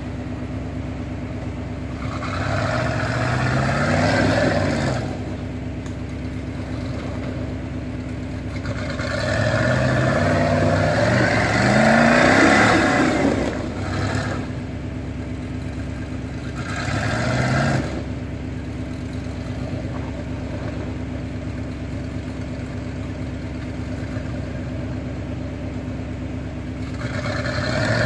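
Off-road rock-crawler buggy's engine revving hard in about four bursts as it claws up a steep dirt hill, dropping back to a steady idle between the bursts.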